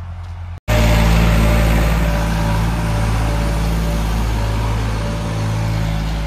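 Farm tractor's diesel engine running steadily and loud. It cuts in abruptly after a brief dropout about half a second in.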